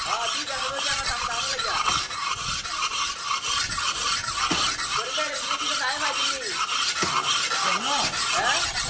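A machete chopping into a felled palm trunk: a few sharp blade strikes, spread a second or more apart, over a steady high-pitched rasping hiss.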